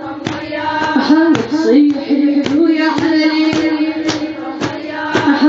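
A woman chanting a Shia latmiya lament in long sung lines, over a steady beat about twice a second.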